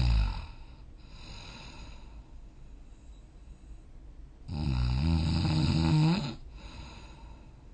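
A sleeping person snoring. The end of one snore fades out just after the start, followed by a quieter breath. A loud, low-pitched snore of about two seconds follows at around four and a half seconds in, then another soft breath.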